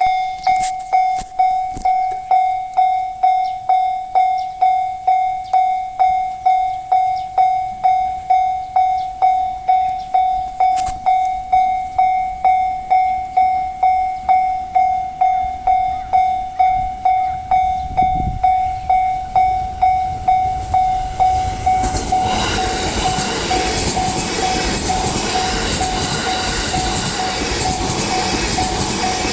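A Japanese level-crossing warning bell rings a steady single-pitched ding, a little under two a second. About 22 seconds in, the rushing noise of an E657 series electric train passing over the crossing takes over, with the bell still faint beneath it.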